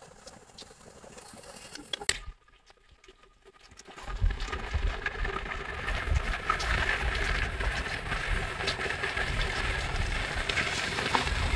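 Blocks of tofu sizzling and crackling in hot oil in a wok, starting about four seconds in over a low rumble.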